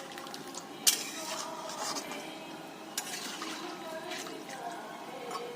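Metal dishes and utensils clinking, with a sharp clink about a second in and a smaller one about three seconds in.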